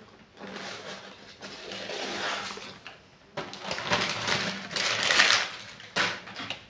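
Baking paper rustling and crinkling as it is handled around sheets of sponge cake, in irregular spells with a few sharper crackles, loudest in the second half.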